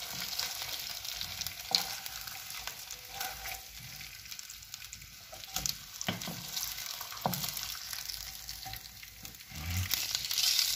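Breaded chicken breast fillets sizzling in hot oil in a nonstick frying pan, with a wooden spatula scraping and knocking against the pan every second or two. The sizzling gets louder near the end.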